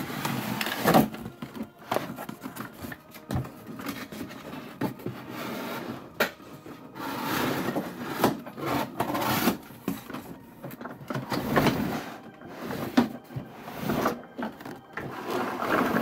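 A large cardboard toy box being handled and unpacked: irregular rustling, scraping and short knocks of cardboard and packaging.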